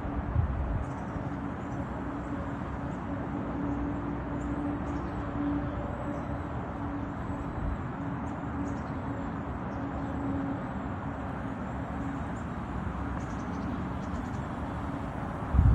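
5TH WHEEL V30PRO electric scooter's 350 W motor running with a steady whine over road and wind noise. A loud low knock comes right at the end.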